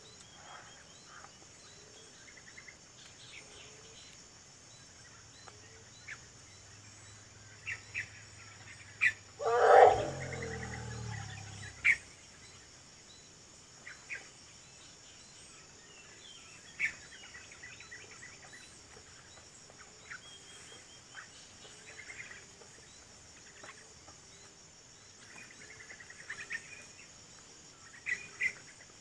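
A Sumatran elephant gives one loud call about ten seconds in, lasting about a second, with a few sharp snaps just before and after it. A steady high insect drone and scattered bird chirps run underneath.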